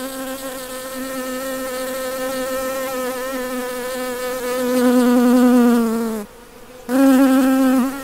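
Buzzing bee sound effect: a steady buzz that swells louder, sags a little in pitch and breaks off about six seconds in, then returns loudly for about a second.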